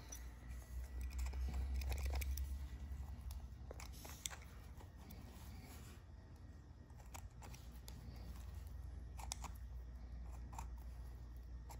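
Faint scattered ticks and scraping as a small knife separates a deer's ear skin from the cartilage while the ear is being turned, over a low rumble that is louder in the first few seconds.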